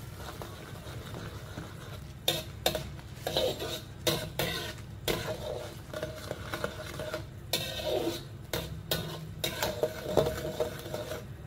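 A cooking utensil stirring a broth in a pot, scraping and knocking against the pot with irregular clinks.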